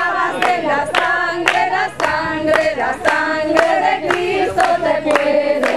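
A congregation singing a hymn together, with steady hand clapping about twice a second.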